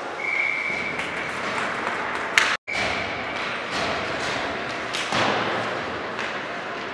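Game noise on an indoor court: a ball thudding on the floor against a steady background of the hall. There is a sharp impact about two and a half seconds in, with a split-second dropout of the audio right after it, and a short, flat high tone sounds twice in the first half.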